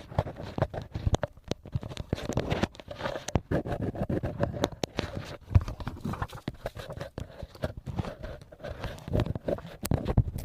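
ASMR rustling close to the microphone: crinkly material handled and squeezed, giving a dense, irregular run of sharp crackles and clicks.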